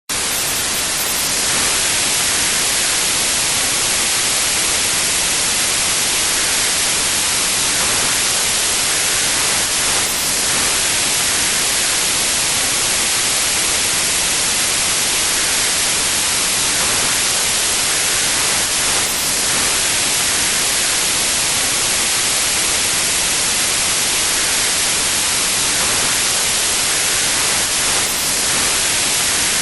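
Steady synthetic white noise: an even, constant hiss across the whole range, brightest in the upper frequencies, with a very slight dip about every nine seconds where the loop repeats.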